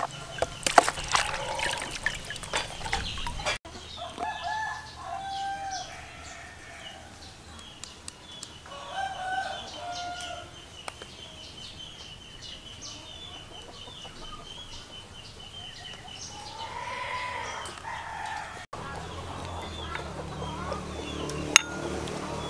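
Water splashing in a plastic basin as a squid is washed by hand, then a rooster crowing about three times.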